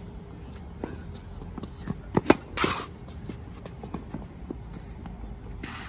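Tennis rally: running footsteps and shoe scuffs on a sand-filled artificial-grass court, with a sharp racket-on-ball hit a little over two seconds in, the loudest sound, followed by a short scrape of a shoe sliding in the sand; another short scrape comes near the end.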